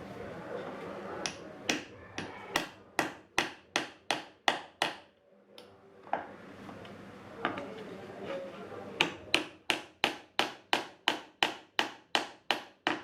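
Hammer blows in two quick, even runs of about three strikes a second, with a lull of about four seconds between them that holds a couple of softer knocks.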